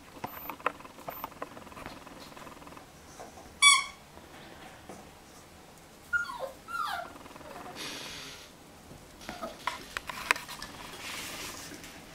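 Jack Russell Terrier puppy at play with a squeaky toy: one loud, shrill squeak nearly four seconds in, then a few short falling whines about two seconds later, among scattered small clicks and knocks.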